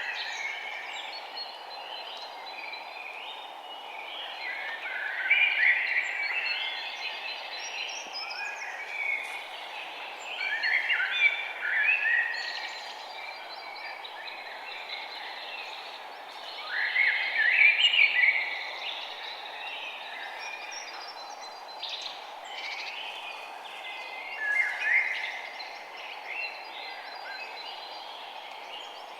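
Songbirds chirping and singing in bursts every few seconds, over a steady low background hiss.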